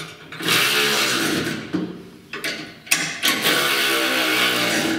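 Cordless ratchet motor whirring in two runs of about two seconds each, driving the bolts of a shimmed pillow-block bearing on a bandsaw's jackshaft.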